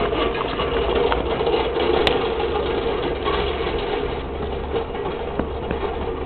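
An engine running steadily with a low rumble underneath.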